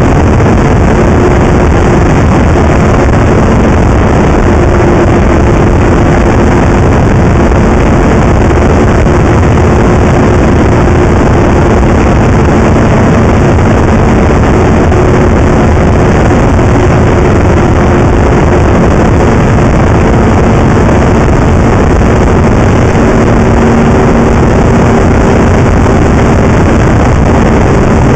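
Snowmobile engine running at a steady trail-cruising speed, its note drifting only slightly. It is largely buried under loud, constant wind noise on the mounted camera's microphone.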